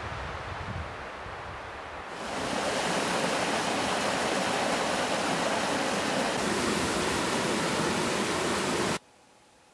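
Rushing water of a small rocky stream and waterfall: a steady, loud rush that comes in about two seconds in and cuts off suddenly near the end.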